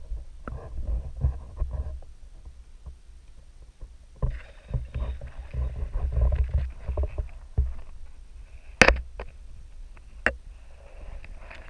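Underwater noise picked up through a GoPro's waterproof housing: low rumbling and bumping of water and handling against the case. Two sharp clicks, the loudest about nine seconds in and a smaller one a second and a half later.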